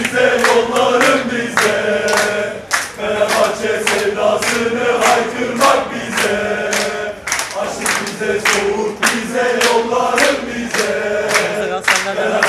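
Crowd of football supporters chanting a terrace song in unison, many male voices together, with sharp beats kept in time about twice a second.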